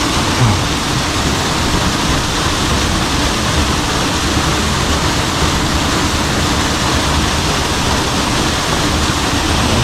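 Waterfall pouring close by: a steady, loud rush of falling water.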